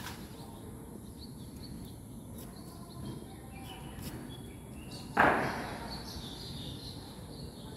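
Honor guards' boots landing in unison: light marching steps, then one sharp stamp about five seconds in with a short ring-out as the squad halts and comes to attention.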